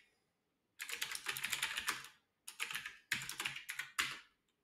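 Typing on a computer keyboard: three quick runs of keystrokes, the first starting about a second in and the last stopping shortly before the end.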